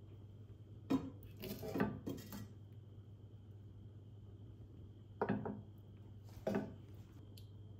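Spatula scraping fried chicken pieces out of a nonstick frying pan and knocking against the plate: a cluster of scrapes and knocks about a second in, then two more single knocks later on, over a steady low hum.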